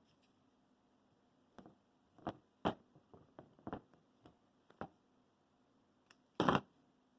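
Hard plastic clicking and knocking as a phone holder is fitted onto a GorillaPod tripod: a string of short sharp clicks over a few seconds, then one louder, longer handling noise near the end.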